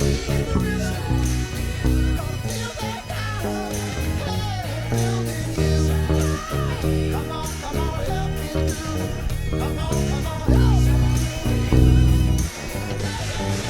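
Six-string electric bass playing a funky, punchy line along with a pop-rock backing track that has singing over it.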